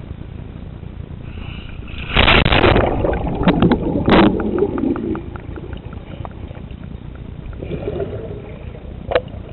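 A sea kayak rolls over into the sea: a loud splash about two seconds in, then a few seconds of churning water with short clicks. After that the sound is muffled underwater bubbling, with one sharp knock near the end.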